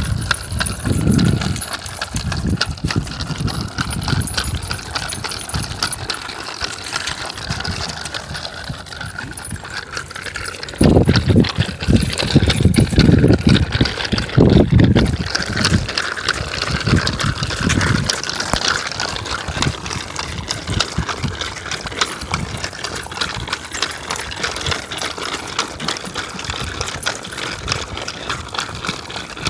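Dogs being walked on pavement: a steady clatter of small metallic jingles and rattles from dog tags, leash clips and a four-wheeled dog wheelchair rolling over asphalt. A few low rumbles hit the microphone about a third of the way in.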